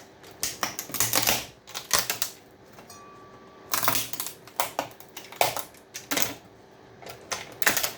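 Components being torn off a TV power supply circuit board: irregular sharp cracks and snaps of solder joints and leads giving way, in clusters with short pauses between.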